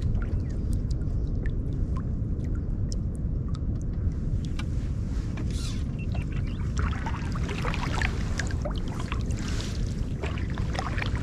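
Canoe paddle working calm river water: small splashes and trickling drips off the blade, busier in the second half, over a steady low rumble.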